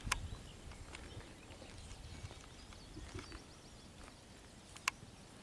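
Quiet open-air ambience with faint high chirps, broken by two sharp clicks, one just after the start and one near the end.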